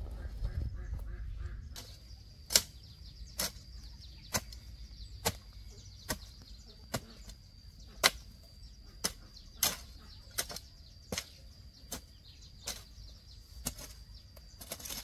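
A run of about fifteen sharp chopping blows, roughly one a second, evenly paced, over a faint steady high-pitched tone.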